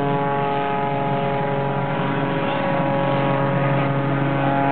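Aerobatic plane's piston engine droning steadily at high power as the plane climbs overhead, its pitch holding even.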